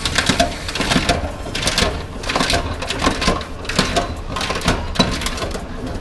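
Bottle-deposit reverse vending machine running with a low hum and a rapid, irregular run of mechanical clicks and rattles as it takes in and processes a returned bottle; near the end it starts printing the deposit receipt.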